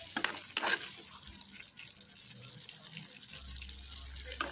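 A spoon stirring a thick, chunky tomato-sauce stew in a pot: wet sloshing of the sauce, with two sharp scrapes of the spoon against the pot in the first second and another near the end.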